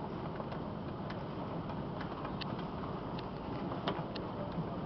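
Hailstorm: hail and rain falling steadily as a constant hiss, with scattered sharp ticks of individual hailstones striking at irregular times.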